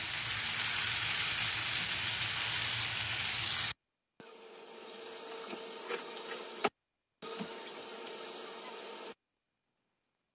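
Spinach-stuffed chicken breasts sizzling in olive oil in a grill pan. The sizzle is loudest at first, then breaks off abruptly twice and returns quieter, before stopping short near the end.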